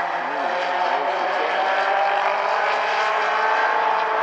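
Several mini stock race cars' engines racing in a pack on an asphalt oval, their pitches rising and falling as the drivers lift and get back on the throttle through the turn.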